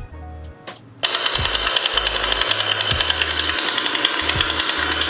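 Motorized chainblade prop sword switched on about a second in, starting abruptly into a steady, fast-rattling, chainsaw-like running noise.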